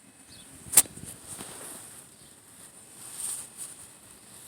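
A single sharp click about a second in, then soft rustling and handling sounds.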